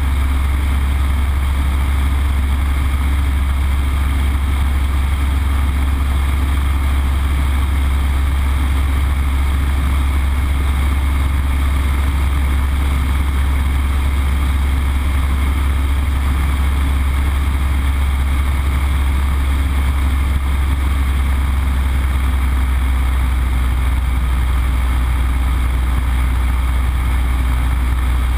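A Yak-52's nine-cylinder M-14P radial engine and propeller run in level flight, heard inside the closed cockpit as a loud, steady low drone with rushing airflow over it.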